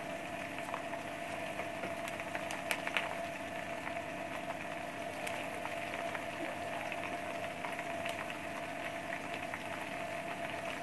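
Chopped onions and slit green chillies frying in hot oil in a wok: a steady sizzle with scattered pops and crackles, and a steady hum underneath.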